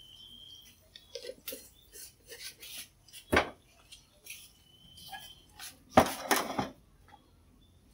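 Kitchenware being handled: a metal spoon clinking against a bowl and a wooden cutting board knocked about on a table. Light clicks and knocks, one sharp knock about a third of the way in, and a louder clatter about three quarters through.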